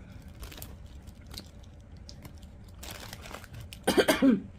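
Faint handling and eating noises, then a person coughs loudly about four seconds in, a short, throaty cough.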